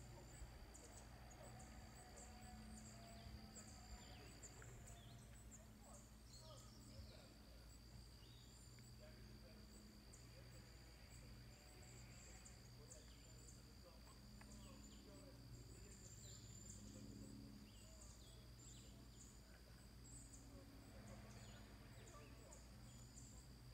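Near silence outdoors: a faint steady high-pitched insect trill that drops out briefly about four seconds in, with scattered short high chirps over a low hum.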